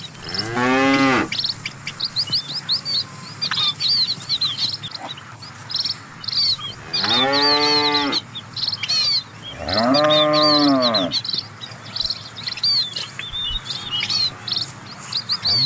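Cattle mooing: three long, drawn-out moos, each rising and falling in pitch, at the start, about seven seconds in and about ten seconds in, with another beginning at the very end. Small birds chirp steadily in short repeated high notes between the moos.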